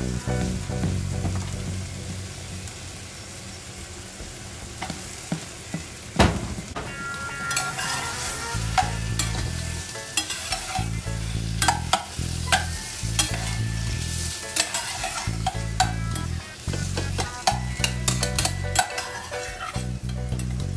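Food frying and sizzling in a small saucepan as a spoon stirs it, with repeated scraping and clinking against the pot and a sharp knock about six seconds in.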